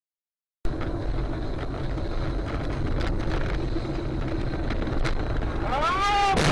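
Dashcam recording inside a moving car: a steady low rumble of engine and road noise with some wind on the microphone, cutting in suddenly about half a second in. Near the end a person's voice rises and falls in pitch, like a drawn-out cry.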